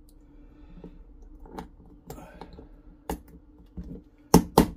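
Small hammer tapping a pin punch to drive a stuck pin out of a shotgun breech block. Light metal clicks come first as the parts are handled, then a single tap about three seconds in, and near the end a quick run of sharp taps, about five a second.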